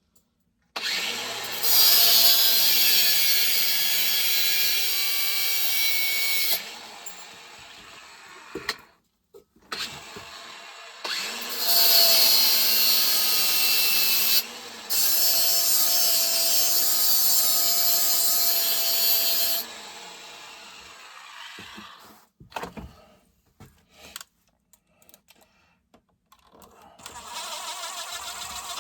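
Small power tool running in two long bursts, cutting down a bolt that is too long, with a steady motor whine under a harsh high grinding hiss.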